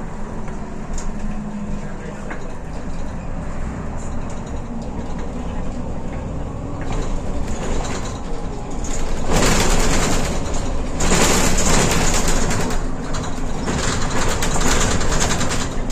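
Mercedes-Benz Citaro O530 city bus heard from inside while driving: steady engine and road noise with a low hum. It grows louder and harsher from about nine seconds in.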